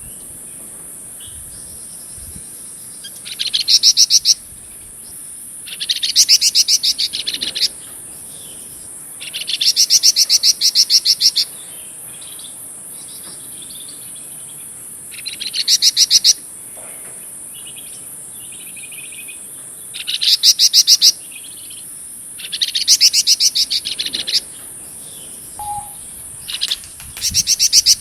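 Flamboyan songbird singing in repeated bouts of a fast, rattling trill ('trecet'), each about one to two seconds long and coming every few seconds. Behind it runs a steady, high-pitched insect drone.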